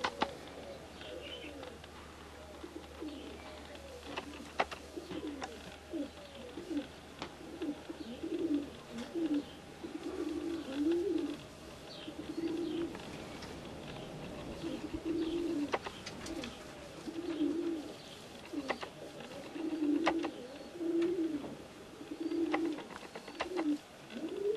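Domestic pigeons cooing: a run of low, rolling coo phrases that come more often in the second half, with a few light clicks between them.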